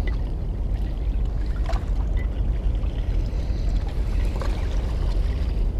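Steady low rumble of wind buffeting an action camera's microphone, with no clear single event standing out.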